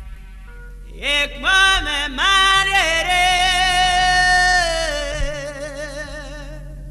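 Gospel song: a solo voice enters about a second in, sings a short phrase rising in steps, then holds a long note with vibrato that fades after about five seconds, over a sustained backing chord.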